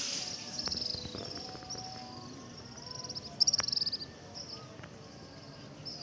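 A flock of small birds twittering overhead: a continuous series of high-pitched chirps and buzzy trills, the loudest trill about three and a half seconds in.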